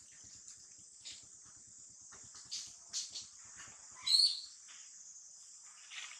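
Steady high-pitched insect drone with a few soft rustles, and a brief high chirp about four seconds in, the loudest sound.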